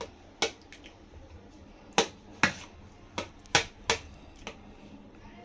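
Steel spoon knocking and clinking against a steel bowl while stirring a watery mix of mashed potato and chickpeas: about eight sharp, irregular clinks.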